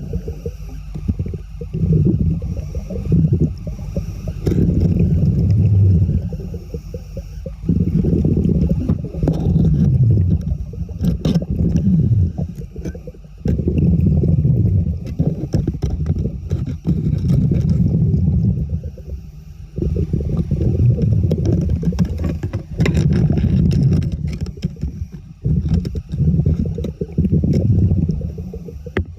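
Low rumbling, bubbling water noise that comes in surges every two to three seconds, with occasional clicks and scrapes.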